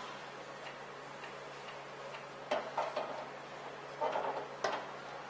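Steady factory-floor hiss with a low hum, broken a little past halfway and again near the end by a few sharp metallic clicks and knocks as aluminium battery-housing parts are handled with a vacuum suction lifter.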